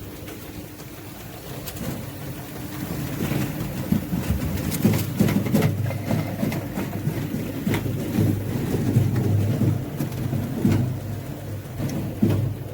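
Apple-grinding mill running: a steady machine hum that from about two seconds in turns into louder, irregular rumbling with many sharp knocks as apples are fed through.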